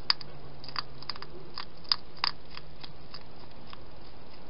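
Hedgehog crunching food: a quick, irregular run of sharp crunches and clicks that thins out toward the end.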